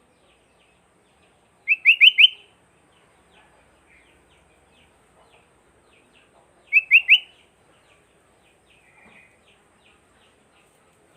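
Sooty-headed bulbul (kutilang) calling: two loud phrases of four quick rising notes each, about five seconds apart, with faint chirping in between.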